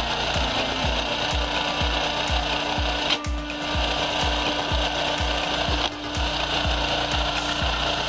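Wood-processing machinery grinding and rubbing against wood, over a steady low beat of about two and a half thumps a second.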